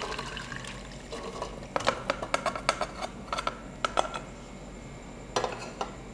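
Parboiled potato fingers and their cooking water poured from a nonstick pan into a steel mesh strainer, the water running through to drain, followed by a quick run of metal clinks and knocks as the pan meets the strainer rim. Near the end, two sharp knocks as the pan is set down on a glass-top gas stove.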